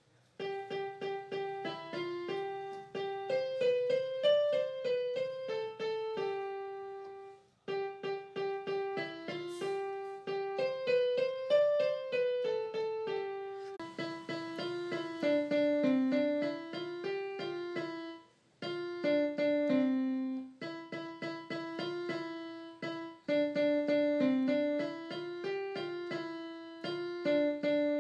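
Background music: a light piano-style keyboard tune of quick, evenly paced notes, played in phrases with short pauses about 8 and 18 seconds in.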